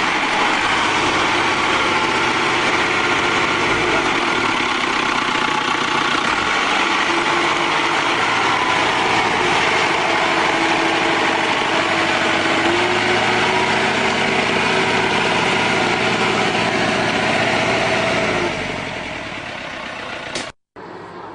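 Off-road 4x4's engine running under load as it climbs a steep, muddy track: a steady drone that steps up slightly in pitch a little past halfway and drops in level near the end.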